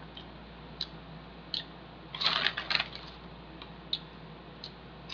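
Pea crisps being eaten: scattered sharp crunches and crackles, with the loudest, densest cluster a little over two seconds in.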